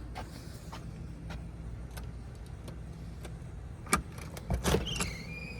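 A steady low mechanical hum, with a sharp click about four seconds in, a few knocks just after, and a falling squeak near the end.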